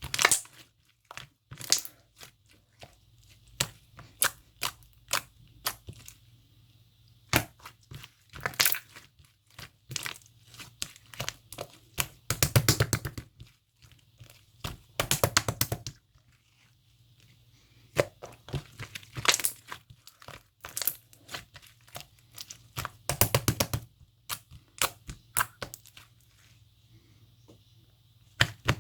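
Irregular crinkling and crackling of handled material: scattered sharp snaps, with several runs of rapid crackles about a second long.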